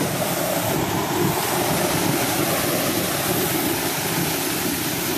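Steady rush of a leaking water tower's water gushing out of a pipe down its side and splashing hard onto the ground.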